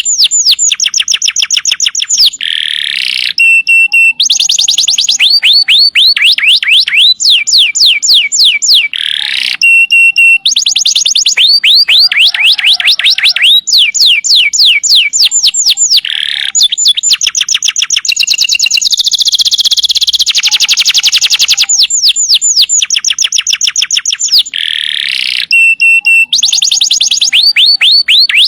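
Domestic canary singing continuously: long rapid trills of quick down-sweeping notes, broken by short steady whistled notes and harsher buzzy phrases.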